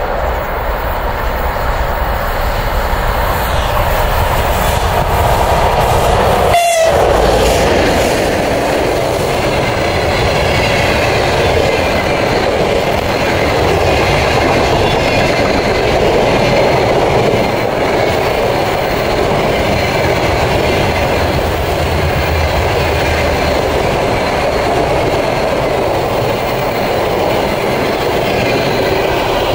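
A train running past on the track, a steady loud rumble and rush of wheels on rails. The sound drops out for a moment about seven seconds in.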